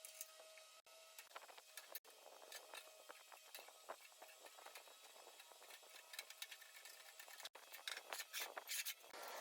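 Near silence, with faint irregular clicking and crackling.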